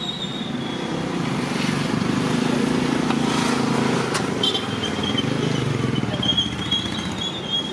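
Street noise, mainly an engine running close by, with a thin high tone coming and going over it from about four and a half seconds in.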